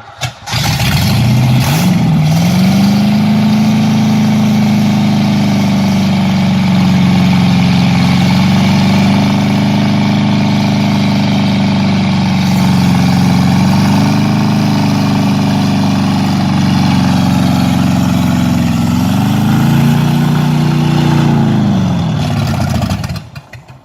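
Freshly installed 350 Chevy small-block V8 firing up and running, its speed wavering up and down a few times. Near the end it rises briefly, then the engine is shut off.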